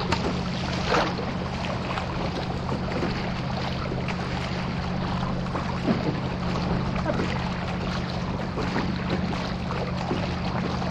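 Water rushing and splashing against a racing surfski's hull as the paddle strokes through the water, with a few louder splashes, about a second in and near six seconds. A steady low hum runs underneath.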